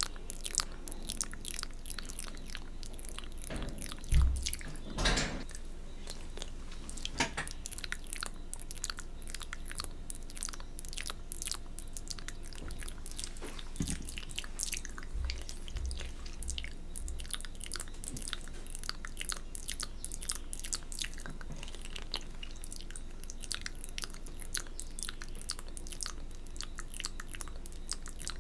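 Close-miked wet mouth sounds from a 'cat bath' spit-painting ASMR routine: licking and spit with a dense run of small wet clicks. A few dull low thumps come about four and five seconds in and again around fifteen to seventeen seconds, the first the loudest.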